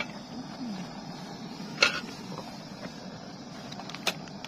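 A small aluminium camping frying pan set down on a portable gas stove's metal pot supports: one sharp metal clank about two seconds in and a lighter clink near the end, over a steady low rushing noise.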